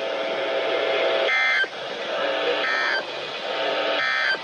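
NOAA Weather Radio SAME end-of-message data: three short bursts of warbling two-tone digital data, each about a third of a second, roughly a second apart, marking the end of the warning. A steady hum runs under them on the radio channel.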